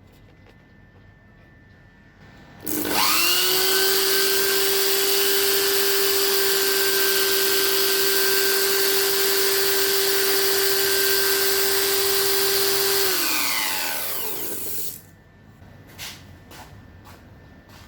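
A small high-speed electric motor spins up quickly to a steady whine, runs for about ten seconds, then winds down and stops. A few light clicks follow.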